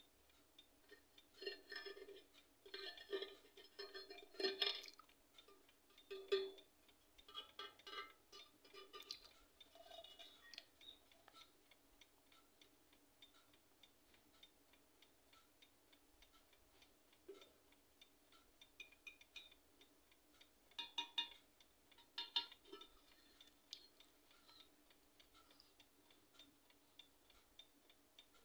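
Faint handling sounds of a small antique silver jewelry box turned in the hands: scattered light clicks, clinks and rubbing of metal, in bunches during the first few seconds and again about three quarters of the way through.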